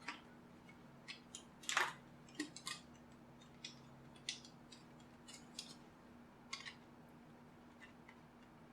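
Faint, irregular clicks and ticks of a small hand tool working on the parts of a JBL Flip 2 speaker during disassembly, the loudest about two seconds in, over a steady low hum.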